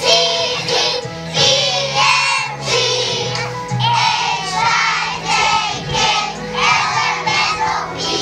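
A group of young children singing a song together in chorus, over steady low accompanying notes that change every second or two.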